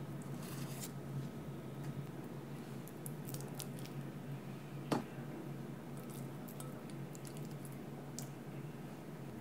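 Hands handling soft boiled potatoes in a glass bowl: small moist squishing and faint scattered ticks, with one sharp tap about halfway through. A low steady hum runs underneath.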